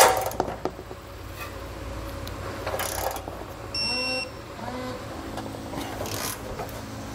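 A torque wrench gives one sharp click as a base plate bolt reaches its set torque, followed by softer ratcheting and tool-handling sounds. A high electronic beep sounds once for about half a second a little under four seconds in.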